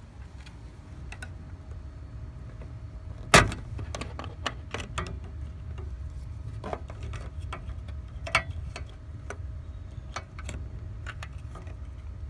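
A sharp plastic snap about three seconds in, then a string of lighter clicks and taps as a Honda Civic's license plate light housing is unclipped from the trunk trim and handled. A low steady rumble runs underneath.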